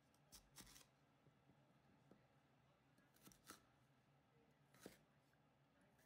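Kitchen knife slicing through a peeled lotus root and meeting a hinoki wood cutting board: a few faint, short cutting strokes, spaced out, with soft room tone between them.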